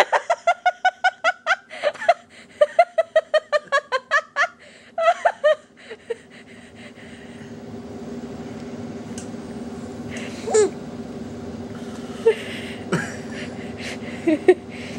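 Hearty laughter: a rapid run of ha-ha bursts, about five a second, for the first six seconds. After that it dies away to a few short sounds.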